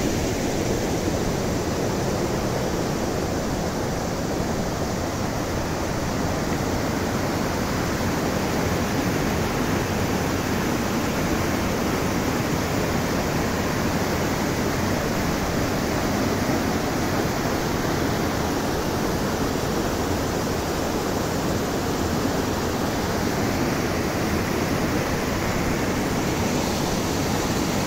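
Mountain stream rushing over rocks and small cascades: a steady, unbroken rush of water.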